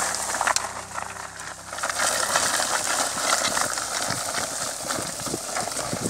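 Crunching and scraping of a bullock team's hooves and a wooden ladder harrow dragged over dry, cloddy field soil: an irregular run of crackly clicks under a steady hiss.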